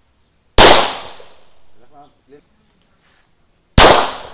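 Two shots from a 9mm pistol, about three seconds apart, each followed by a long fading echo.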